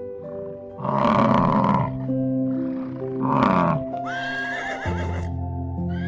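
Background music with two loud bellows from a bison, about a second in and again after three seconds, each falling in pitch. From about four seconds, a horse whinnies, rising and then wavering.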